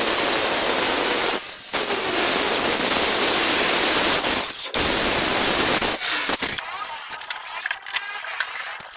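A power tool running loudly on wood for about six and a half seconds, with two brief dips, then it stops.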